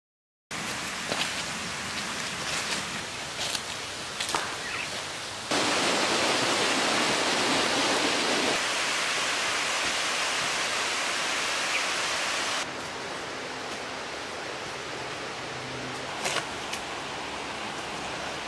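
Steady rushing outdoor noise with a few sharp cracks. It turns abruptly louder and brighter about five seconds in and drops back about twelve seconds in.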